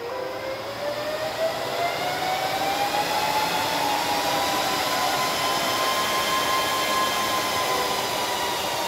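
Cooling fans of a 2U rack server spinning up, a loud whirr whose whine rises steadily in pitch for several seconds, levels off at high speed, then begins to ease down near the end.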